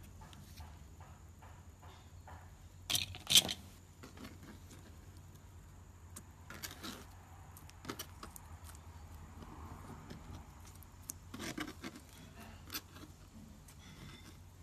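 Slime being squeezed and pressed by hand, giving scattered sticky clicks and crackles, with louder squelching bursts about three, seven and eleven seconds in.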